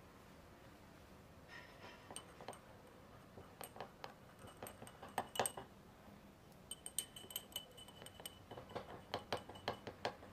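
Irregular light clinks and taps of small hard objects in loose clusters, some with a brief ring.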